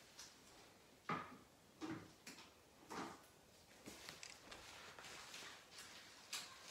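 Near silence: room tone with a handful of faint, short handling sounds.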